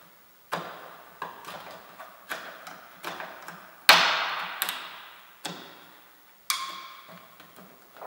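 Red plastic trim removal tool clicking and knocking against the plastic end cover of a Mazda 3 BL exterior door handle as it is pried at, about ten sharp clicks at irregular spacing. The loudest comes a little before the middle, and one near the end rings briefly. The cover won't release because the Torx screw behind it is not completely removed.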